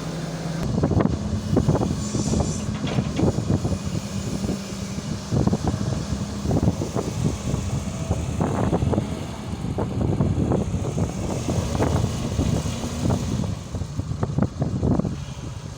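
Excavator's diesel engine running steadily under load, with repeated knocks and clanks from the machine digging soil.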